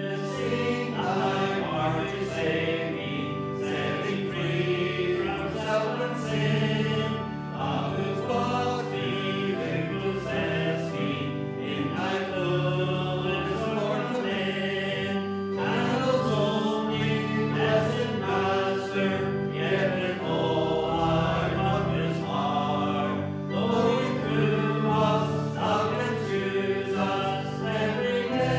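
Congregation singing a worship song together, many voices over steady musical accompaniment.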